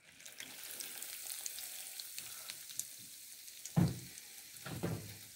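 A batter-coated Oreo cookie sizzling in hot frying oil in a stainless steel pot, a steady hiss with scattered small crackling pops that starts as the cookie goes in. Two dull knocks come near the end.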